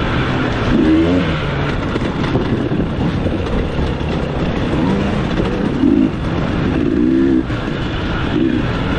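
Dirt bike engine being ridden hard off-road, revving up and down over and over. It is heard from on board the bike.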